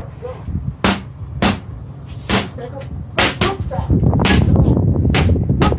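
Boxing gloves smacking against focus mitts in a string of sharp slaps: about ten punches, singles and quick two- and three-punch combinations. A low rumble comes in during the second half.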